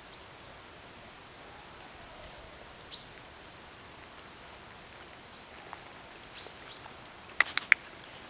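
Quiet background hiss broken by a few short, high chirps, one about three seconds in and two more between six and seven seconds. Three sharp clicks follow close together near the end.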